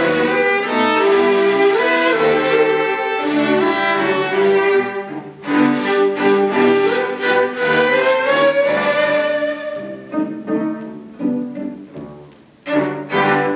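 Four cellos and a ney (Turkish end-blown reed flute) playing a slow Turkish Sufi-style melody together. The playing thins out after about ten seconds and the piece closes with a few short, loud final chords.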